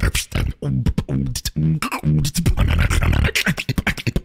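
Solo beatboxing into a microphone: a fast, tightly rhythmic pattern of sharp kick and snare sounds with short pitched bass notes in between.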